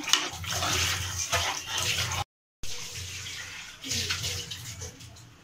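A steel spoon stirring thin, watery curry in an aluminium pressure cooker pot: liquid sloshing with scattered clinks and scrapes of the spoon against the pot. The sound drops out completely for a moment a little over two seconds in.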